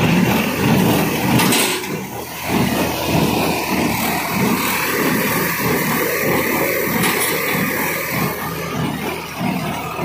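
Massey Ferguson 1840 small square baler working behind a tractor, picking up straw: the tractor engine runs steadily under the fast, even, rhythmic clatter of the baler's mechanism.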